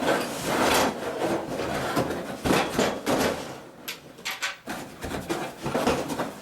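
Metal bed-frame rails being pulled out of a cardboard box: rubbing and scraping, with a few sharp knocks.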